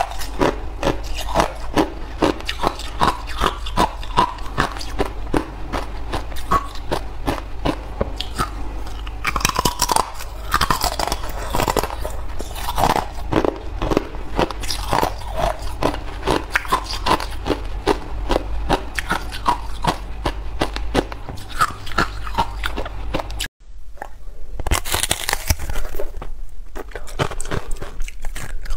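Thin sheets of ice being bitten and chewed: rapid, brittle cracking and crunching. The sound cuts out briefly about two-thirds of the way through, then the crunching resumes.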